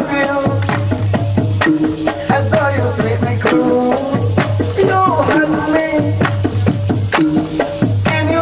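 A song performed live through a sound system: a male voice singing over amplified music with a steady beat, sharp percussion clicks and a pulsing bass.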